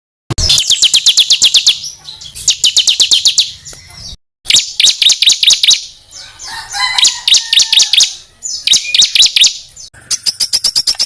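Songbird 'tembakan' song used as competition-bird training material: rapid trains of sharp, high notes at about ten a second, in runs of one to two seconds. A few lower whistles slide through the middle. The recording cuts briefly to dead silence about four seconds in, where two clips are spliced together.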